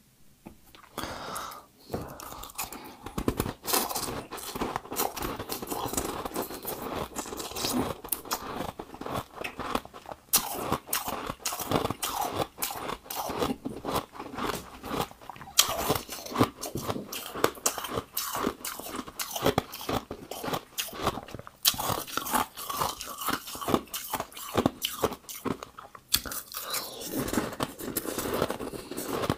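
Close-miked biting and chewing of frost-covered ice balls: dense, irregular crunching that starts about a second in and keeps going.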